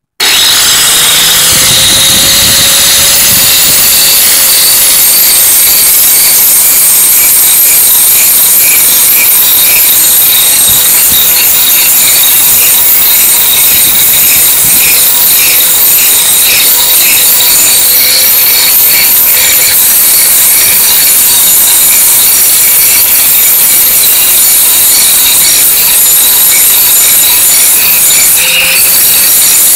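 Handheld angle grinder starting up and grinding the cutting edge of a steel lawnmower blade: a loud, steady whine over a harsh grinding rasp as the abrasive disc bites the metal.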